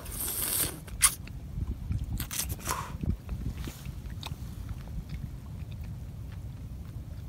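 A raw native oyster slurped off the half shell and eaten: a short slurp at the start, a sharp click about a second in, and a few brief slurping and mouth noises, then small clicks. A low steady rumble runs under it all.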